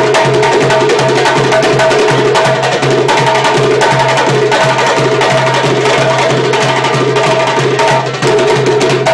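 Live percussion group drumming a fast, dense rhythm of many overlapping strikes, with a steady low tone running under it.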